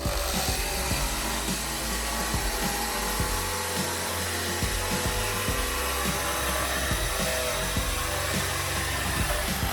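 A power tool's motor running steadily, starting abruptly, over background music.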